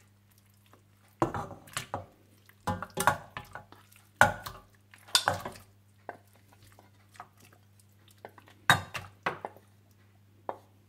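Raw mutton chunks being pushed off a plate with a wooden spatula and dropping into water in a stainless steel pot. The spatula scrapes and knocks against the plate and pot rim in irregular clusters of short clunks.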